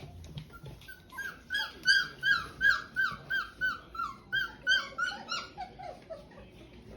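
A dog whining: a quick run of short, high whimpers, each falling in pitch, about three a second, turning lower and softer near the end.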